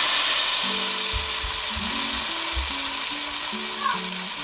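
Hot oil with cumin seeds (a tarka) hitting a pot of yogurt and gram-flour curry, sizzling and slowly dying down, with background music and a beat over it.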